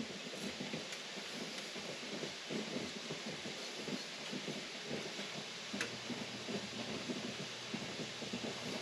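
Pot of hot strawberry rhubarb jam mixture bubbling softly and steadily on the stove, with one faint click a little before six seconds in.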